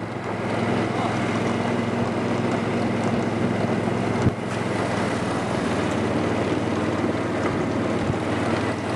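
Vehicle engine running steadily while riding, with wind buffeting the microphone. A single sharp knock about four seconds in.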